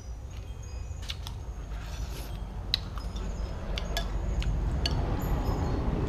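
Eating from a noodle bowl: a few light clicks and clinks of a spoon and chopsticks against the bowl, over a steady low rumble that swells near the end.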